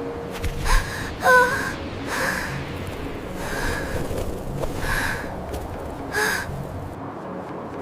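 A run of short, breathy gasp-like vocal sounds, about one every second, from an animated character; one about a second in carries a brief squeaky pitched tone.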